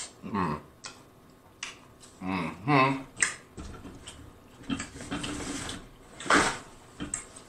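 Close-up mouth sounds of eating seafood boil: wet chewing, lip smacks and slurping of the sauce off a spoon, with a couple of short murmurs through a full mouth and one louder noisy sound about six seconds in.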